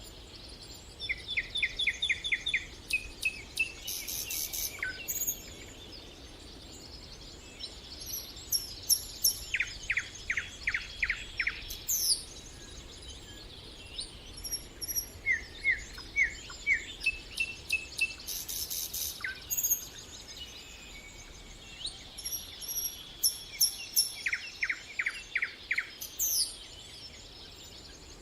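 Several songbirds singing, with phrases of quick repeated notes recurring every few seconds and higher chirps from other birds in between.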